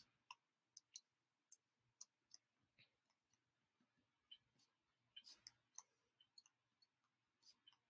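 Near silence with a few faint, scattered clicks: several in the first two seconds and a small cluster a little past five seconds in.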